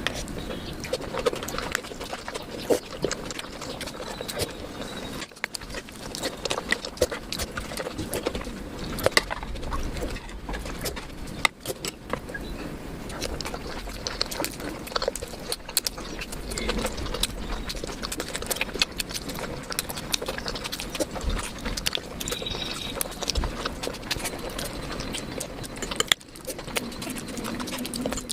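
A person eating close to the microphone: chewing and smacking with many short, irregular mouth clicks and crackles.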